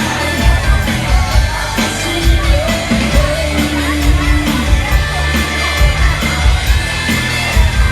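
A live band playing: drums keeping a steady beat under bass and other pitched instruments, with some singing or crowd shouts mixed in.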